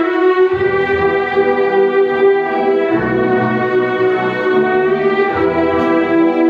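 Youth symphony orchestra playing live: violins hold long sustained notes, with cellos and basses coming in underneath about half a second in.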